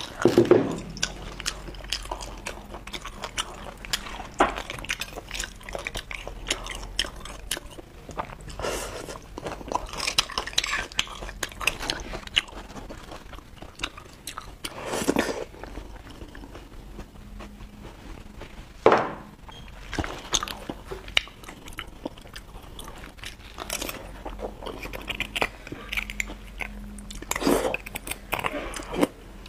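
Close-miked sounds of beef bone marrow being eaten: irregular wet chewing and biting, with a few louder clicks and smacks scattered through.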